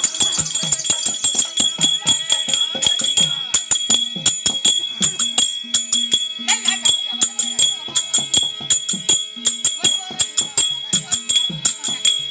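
Therukoothu folk-theatre percussion: fast, steady strokes on barrel drums with pitched low drum notes, over a continuous jingling and ringing of small metal bells and cymbals.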